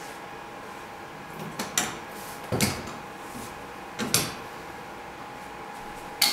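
The tall panel doors of a large 3D printer's enclosure are swung shut and pressed closed, giving a handful of separate clicks and knocks over a steady faint hum.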